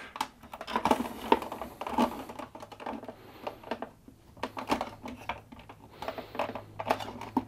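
Irregular plastic clicks, knocks and rustling as a double socket faceplate with its wired lever connectors is handled at a dry-lining back box, the cables shifting behind it as it is eased out and pushed back in.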